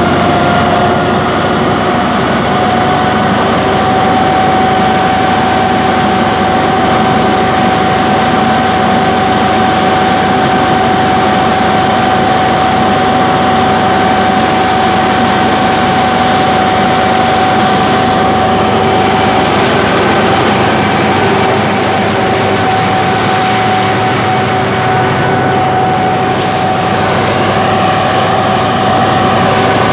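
Alsthom diesel-electric locomotive running steadily at close range, its engine giving a constant low rumble with a steady high whine over it.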